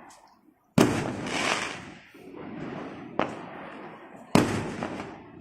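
Fireworks bursting. Two loud bangs, about a second in and near four and a half seconds, each trail off in a crackling rumble, with a sharper single crack between them.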